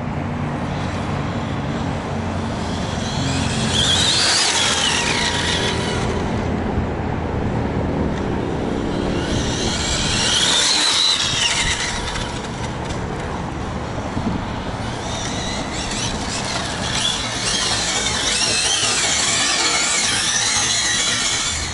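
Brushless electric motor of an Arrma Infraction 6S RC car whining as it accelerates and passes on asphalt, with tyre noise and squeal. The whine rises and falls in passes about 4 and 10 seconds in, and again more busily near the end.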